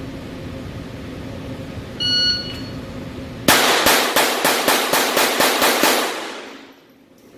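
A Glock 44 .22 LR pistol fired in a rapid string of about ten shots, roughly four a second, with each shot cycling the action without a stoppage. A short electronic beep sounds about a second before the string.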